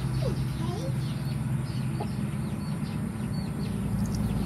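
Chickens clucking, with a run of short, high, falling peeps, over a steady low engine hum.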